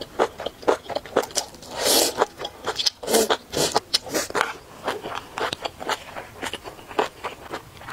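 Close-miked eating: a slurp of noodle-like strands from a cold vegetable dish about two seconds in, then wet chewing with many small clicks and smacks.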